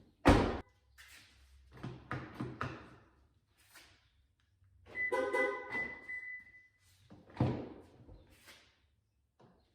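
Thunks and clatter from a 2013 Toyota Camry's rear passenger door as its newly replaced electric door lock is tested: a sharp thunk just after the start, a few lighter knocks around two seconds in, a short electronic tone about five seconds in, and another thunk about seven and a half seconds in.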